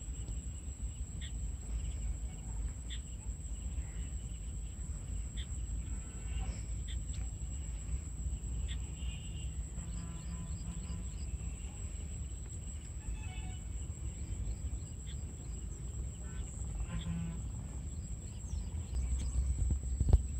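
Outdoor pond-side ambience: a steady high-pitched insect drone, scattered short chirps, and a low rumble of wind on the microphone that grows louder near the end.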